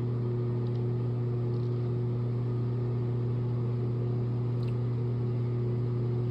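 Steady low machine hum with a few fixed tones, unchanging throughout.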